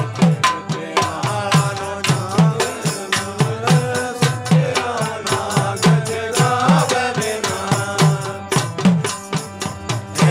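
Indian devotional folk music: a man singing a bhajan over harmonium, with a barrel hand drum keeping a steady beat of low strokes that drop in pitch, and small hand percussion jingling along.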